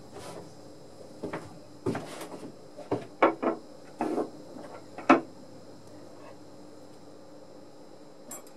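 Wooden blocks and thin brass pipes being picked up and set down on a wooden workbench: a string of knocks and taps over about the first five seconds, then one small click near the end.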